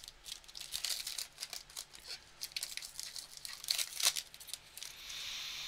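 Foil trading-card pack wrapper crinkling and tearing as it is ripped open by hand: a run of dry crackles, sharpest about four seconds in, then a steady soft hiss near the end.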